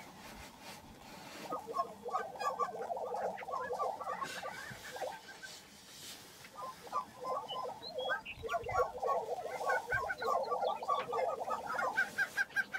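Male lesser prairie-chickens calling as they display on a lek: several birds give rapid clucking, chattering notes in overlapping runs, with a brief lull about six seconds in.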